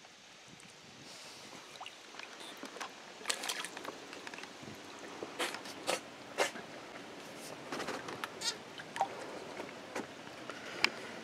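Lake water splashing and sloshing at close range, with a scattering of sharp splashes at irregular moments from about three seconds in.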